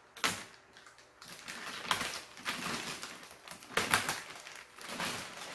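Clear plastic bag crinkling in several short bursts as it is tugged and pulled off a small guitar amplifier.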